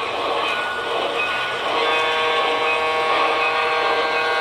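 Model locomotive's onboard sound system running, with a sustained multi-note warning signal starting about two seconds in and held through the end.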